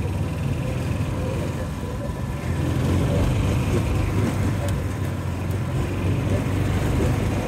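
John Deere Gator utility vehicle's engine running steadily as it drives along, getting a little louder about two and a half seconds in.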